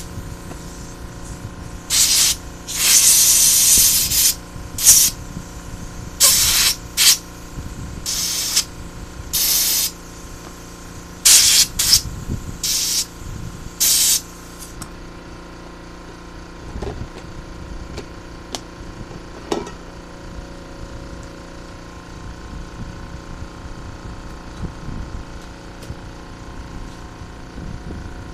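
A pressurised spray nozzle hissing in short bursts over the spark plugs, about ten blasts in the first half, one of them nearly two seconds long. Then only a low background with a few faint clicks.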